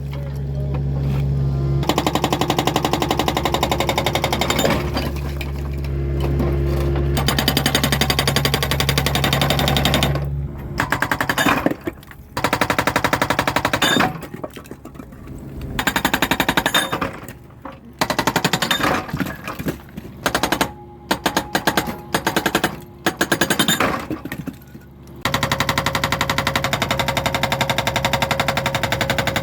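Excavator-mounted hydraulic breaker hammering on dense rock in rapid, even blows over the excavator's steady engine drone. It runs continuously for about ten seconds, then in short stop-start bursts, then continuously again near the end.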